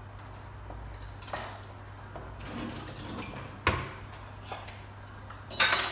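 Kitchen dishes and utensils clinking and knocking as they are handled on the counter. It comes as several separate knocks, with a sharp knock about three and a half seconds in and a loud, ringing metal-and-glass clatter near the end. A faint steady hum runs underneath.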